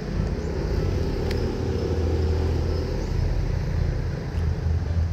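A motor vehicle's engine running steadily as low road traffic, with a higher hum over about the first three seconds.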